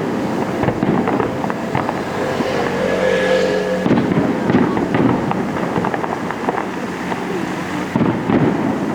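Aerial fireworks display: continuous dense crackling and popping of bursting shells, with louder volleys starting about four seconds in and again near the end.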